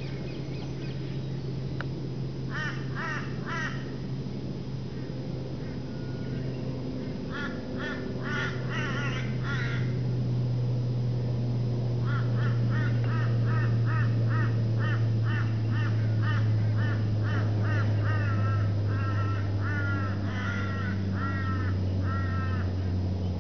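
Birds calling in runs of quick repeated notes: two short runs, then a long run from about halfway through, over a steady low hum.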